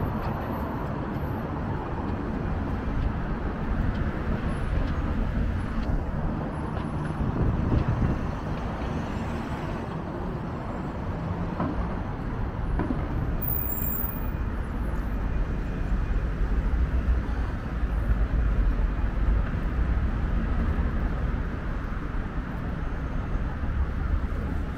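City street ambience dominated by road traffic: a steady low rumble of passing vehicles, growing louder for a few seconds past the middle.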